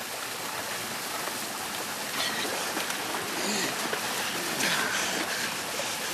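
Water pouring and splashing in a steady, even rush, like a heavy downpour of spray falling into deeper water.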